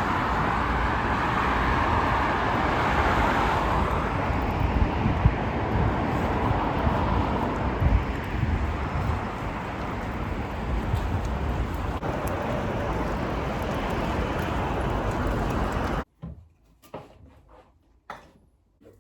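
Steady rushing noise, of the kind heard from a moving vehicle, cutting off abruptly about sixteen seconds in; a few faint clicks follow.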